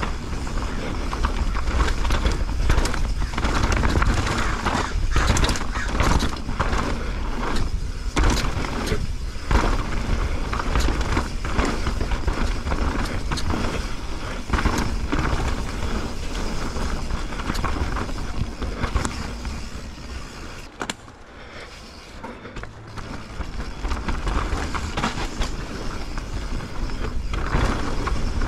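Mountain bike descending a dirt trail at speed: tyres rolling over the dirt with a steady low rumble, and the bike knocking and rattling over bumps. It goes quieter for a couple of seconds about two-thirds of the way through, then picks up again.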